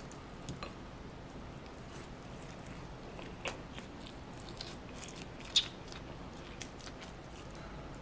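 Close-up eating sounds: chewing a crispy Korean chive pancake (buchujeon), a few soft crunchy clicks over a low room hiss, with one sharper click a little past halfway.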